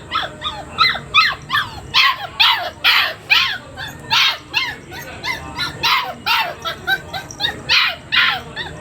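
Labrador puppy barking and yipping over and over, about two to three high-pitched barks a second, in protest at being tied up.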